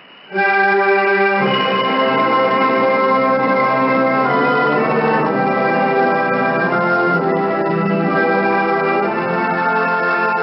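Instrumental music of sustained chords, received as a shortwave radio broadcast, starting about half a second in and growing fuller a second later.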